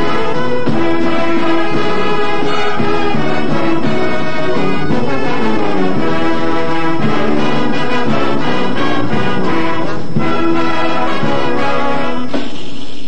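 High school marching band playing, brass to the fore with trombones and trumpets, in a rhythmic tune of short, changing notes. The brass cuts off briefly near the end.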